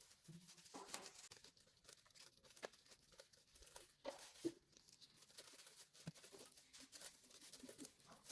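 Faint crinkling and tearing of plastic stretch film being peeled off the ink tubes, with scattered small clicks.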